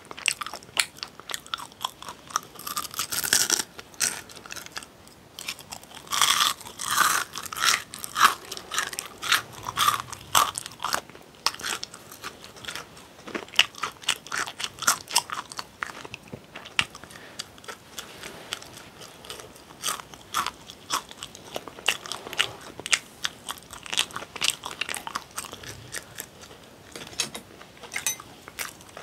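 Close-miked mouth sounds of a person biting and chewing a crispy fried chicken snack: sharp crackly crunches, densest a few seconds in and again for several seconds after, then continued chewing with scattered crunches.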